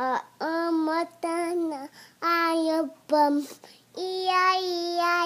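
A young boy singing in a high voice in several short phrases, with a long held note near the end.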